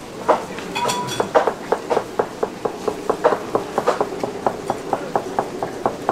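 Knife chopping through a stack of boiled pork rind onto a plastic cutting board: quick, regular knocks, about four a second.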